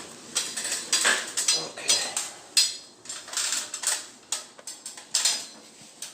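Irregular clinking and clattering of hard objects knocking together, about a dozen sharp knocks and clinks.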